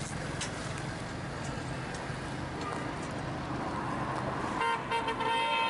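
A heavy engine running steadily, then a horn sounding in a few short blasts close to the end.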